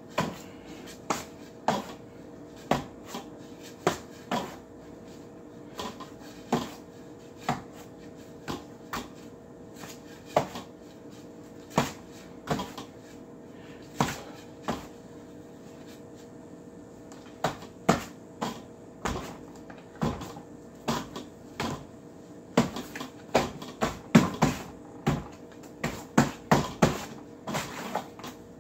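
Rattan ring knocking sharply as it is swung and struck around the forearms and hands in ring drills, about one or two knocks a second, coming faster and louder near the end. A faint steady hum runs underneath.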